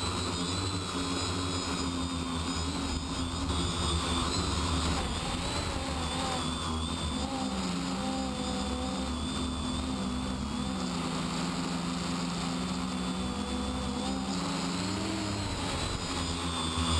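An X525 quadcopter's electric motors and propellers, heard close up from a camera mounted on its frame: a steady whirring whine whose pitch rises and falls several times as the rotor speed changes.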